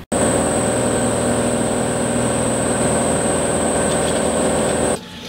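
A steady machine running, with a constant high-pitched whine over a low hum. It starts abruptly and cuts off suddenly near the end.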